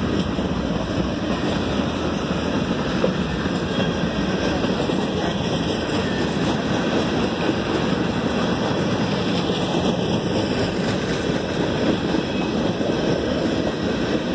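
Freight train cars rolling past a grade crossing: a steady, even rumble of steel wheels on the rails.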